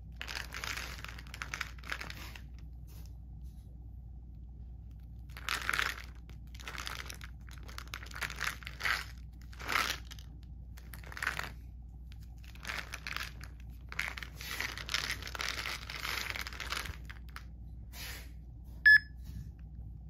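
Rustling and crinkling in irregular bursts as a plastic fish-oil softgel bottle is handled and turned. Near the end, a short sharp beep from a phone's barcode scanner, the loudest sound.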